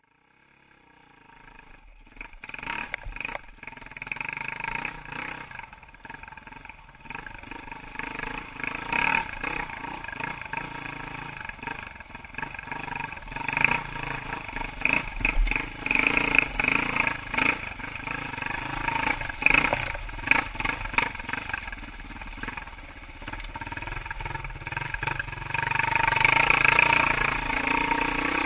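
KTM RFS 540 EXC dirt bike's single-cylinder four-stroke engine running with the throttle rising and falling, mixed with clatter and knocks as the bike rides over rocks. It fades in over the first couple of seconds and gets louder near the end.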